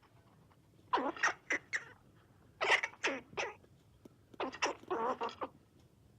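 Squirrel chattering calls, in three bouts of quick, sharp calls about a second and a half apart.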